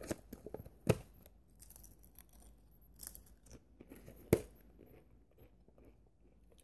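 Biting and chewing a Pringles potato crisp in the mouth: crisp, crackly crunching with a few sharp loud cracks, the loudest about a second in and about four seconds in.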